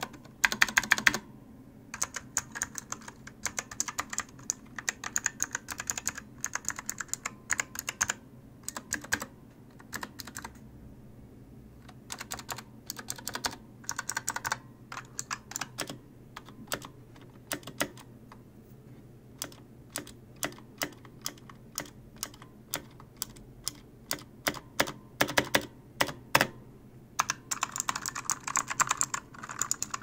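Keys of a Razer Huntsman keyboard with clicky opto-mechanical switches being typed on: sharp clicks in irregular quick bursts and single strokes, with short pauses, sparser in the middle and a fast flurry near the end.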